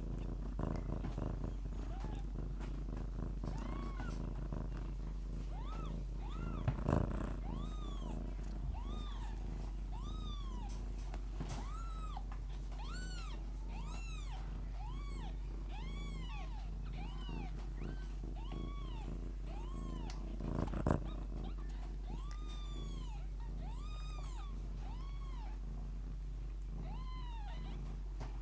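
Lykoi kittens mewing over and over, about one short high mew a second, above the mother cat's steady purring. Twice there is a brief louder rustle, about a quarter and three quarters of the way through.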